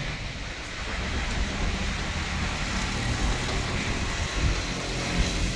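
Street ambience: cars passing on the road under gusting wind, with a steady rush and low rumble. A few low thumps come near the end.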